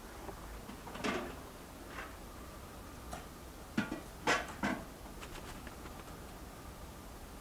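A shovel working the soil of a yard, giving a few short scrapes and knocks: one about a second in, a lighter one at two seconds, and a quick run of three near the middle.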